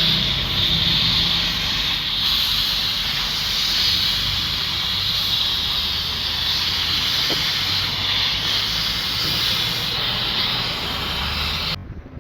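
Electric arc welding on an excavator bucket: a steady hissing crackle of the arc over a low hum, which cuts off suddenly near the end as the arc is broken.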